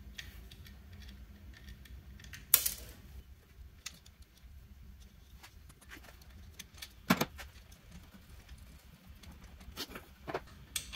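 Light metallic clicks and clinks of ring terminals, wire leads and small hardware being handled and fitted onto the stud-mount diodes of a battery charger's rectifier, with a sharper clink about two and a half seconds in and another about seven seconds in.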